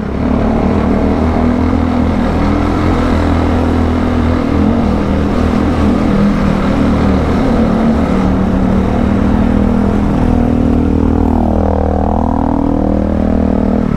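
Modified Bajaj Dominar motorcycle's single-cylinder engine running loud and steady under way, with a brief dip and rise in its note near the end.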